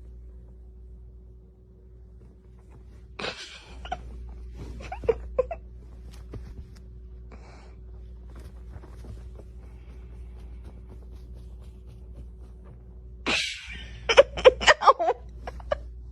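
Two short sneeze-like bursts about ten seconds apart, each followed by a few short chirps, the second by a quick run of clicks and chirps, over a faint low steady hum.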